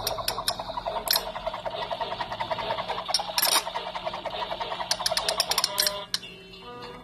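Electronic sound from a children's push-button toy: a fast, repeating beeping pattern with clicks, which changes about six seconds in to a short run of separate electronic notes.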